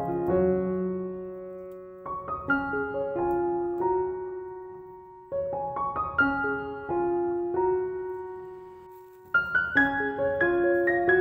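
Background piano music: gentle phrases of notes that fade after each strike, with new phrases starting about two, five and nine seconds in.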